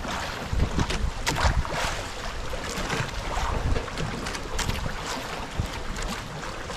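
Wind buffeting the microphone over choppy sea, with waves slapping and splashing irregularly against a small outrigger boat's hull and floats.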